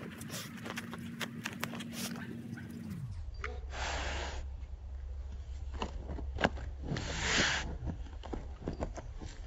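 Dog digging at a gopher hole, its claws scratching and scraping in loose dry dirt, with two long sniffs into the hole, about four and seven seconds in.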